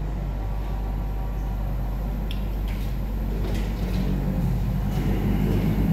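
Steady low hum and room noise of a restaurant dining room, with a few faint clicks and taps a little after the middle, as food is handled on the plates.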